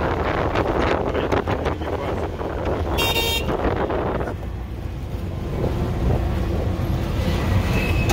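Ride inside a moving auto-rickshaw: its small engine runs steadily, with wind buffeting the microphone over the first few seconds. A vehicle horn gives one short, high-pitched toot about three seconds in.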